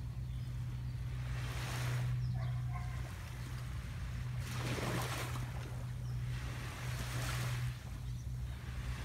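Small waves washing onto a sandy beach, a soft hiss swelling and fading about every two to three seconds, over a steady low hum.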